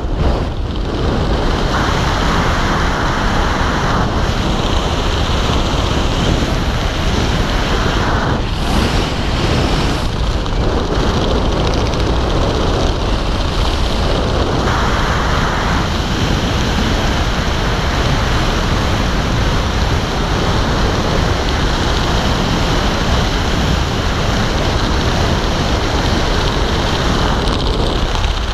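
Steady wind noise rushing over a helmet-mounted action camera's microphone during a skydive descent, swelling briefly now and then.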